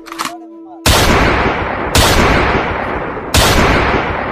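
Three pistol shots, the first about a second in and the others about a second and then a second and a half later, each loud and sudden with a long fading tail.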